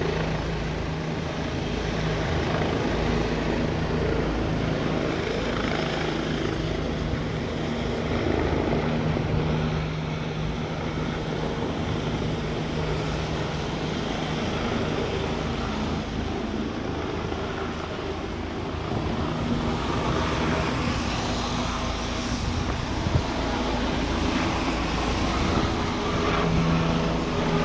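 Twin-turbine Bell 429 helicopter climbing away after takeoff: a steady rotor and turbine sound with a low hum.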